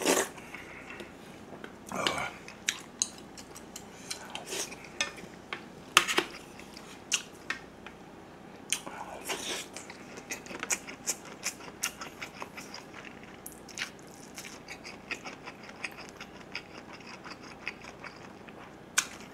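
Close-up eating sounds: a spoon knocking and scraping against a metal lunchbox tray several times, between wet chewing and mouth smacks. Loud sharp knocks come now and then, and a run of small quick clicks follows in the second half.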